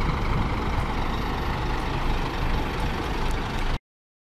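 Scania K410EB6 coach's six-cylinder diesel engine idling steadily. The sound cuts off abruptly near the end.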